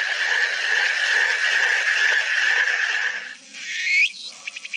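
A steady hissing noise in the cartoon soundtrack that stops about three seconds in, followed by a few brief rising chirps.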